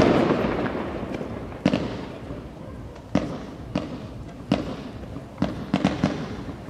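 Fireworks going off: a string of about eight sharp bangs at irregular intervals, several coming in quick succession near the end, after a rush of noise that fades over the first second or so.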